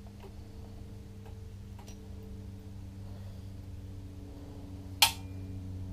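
Small metal parts (nut and lock washers) being worked off the change-gear shafts of a power feeder's gearbox: faint light clicks early on, then one sharp metallic click about five seconds in. A steady low hum underneath.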